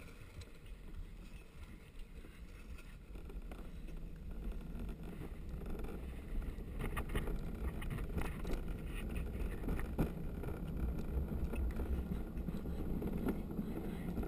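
Gravity luge cart rolling downhill on a concrete track: a low rumble from the wheels that grows louder as the cart gathers speed, with several sharp knocks in the second half as it rattles over the surface.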